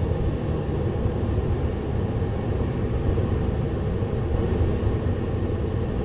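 Ford pickup truck idling, a steady low rumble heard from inside the closed cab.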